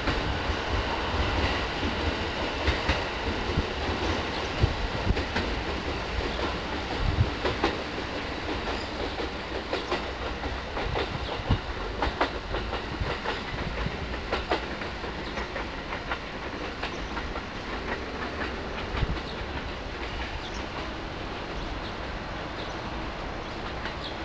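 E217 series electric train running on the rails, its wheels clicking and clattering over rail joints in an uneven series of knocks that thin out and grow slowly fainter as it pulls away.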